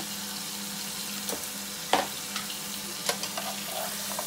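Chopped vegetables and shrimps sizzling in a hot frying pan as they are stirred, with a few sharp clicks of the utensil against the pan, the loudest about two seconds in.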